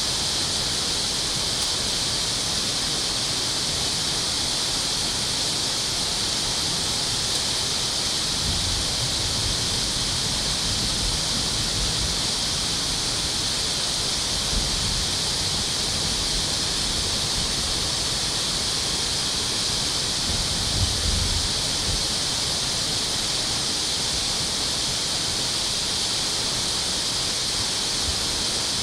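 Steady rushing water: an even, loud hiss with no let-up. It is broken by a few brief low rumbles about a third of the way in and again about two-thirds in.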